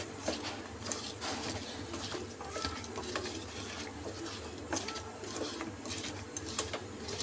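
Hand tossing wet, spice-coated raw potato slices in a steel bowl: irregular soft squelches and small clicks as the slices slap together and against the bowl.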